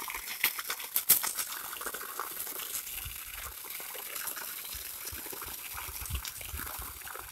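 Water discharged from a 1.5 hp Texmo water pump gushing from the outlet pipe and splashing onto the ground in a steady stream, with a few sharp clicks in the first second or so.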